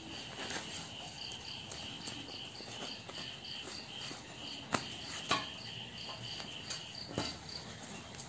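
A high, steady insect trill, pulsing evenly. A few sharp snips of small scissors cutting umbrella fabric off its metal ribs come around the middle and near the end.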